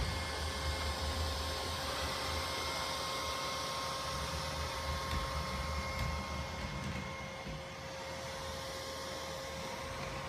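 Neato Botvac D80 robot vacuum running, its suction motor and brushes giving a steady hum with a steady whine on top. It gets a little quieter and more muffled about seven seconds in, as it drives under the chair.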